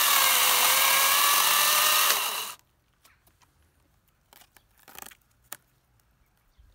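Einhell GE-LC 36/35 Li-Solo cordless chainsaw's brushless motor running at full speed with a steady whine as the chain cuts through a log, the pitch dipping slightly under load. About two seconds in the trigger is released and the saw spins down quickly, leaving a few faint knocks.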